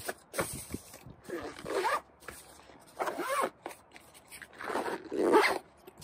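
Zipper on a fabric charging-cable bag being pulled closed in three separate strokes, with light handling of the bag between them.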